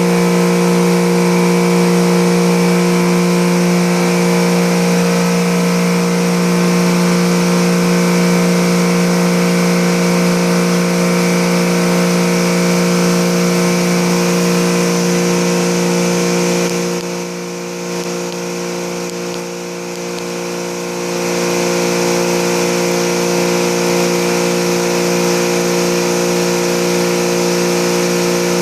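Electric motor of an automated air-conditioner cleaning machine running steadily, a loud hum with a hiss over it. About 17 seconds in the hiss and level drop for a few seconds, then come back.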